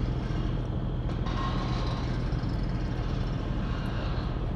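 A steady low engine rumble with a constant hum running underneath, unchanged throughout; a short click about a second in.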